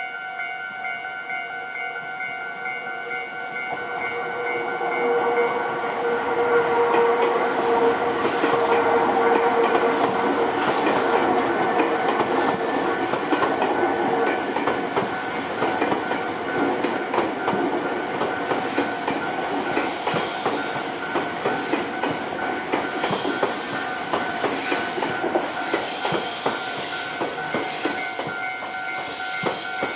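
Level-crossing warning bell ringing steadily while a Nankai Koya Line train runs over the crossing, its wheels clattering over the rail joints, loudest about eight to twelve seconds in. The bell stops right at the end as the crossing clears.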